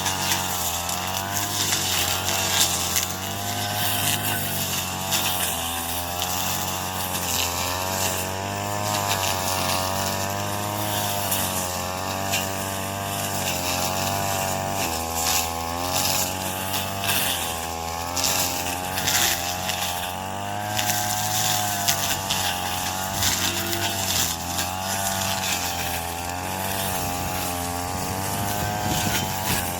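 Yamaha-powered corn-stalk cutting machine running under load, its engine note wavering up and down continuously as stalks are fed through, with a rough, noisy clatter of chopping over it.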